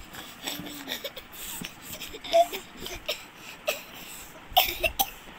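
Toddler fussing: short whiny cries with gliding, wavering pitch, broken up by a few sharp clicks and knocks of handling close to the microphone.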